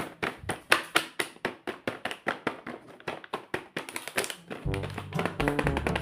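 Background music: a fast, even run of sharp tapping clicks, joined about three-quarters of the way in by a bass line and pitched notes.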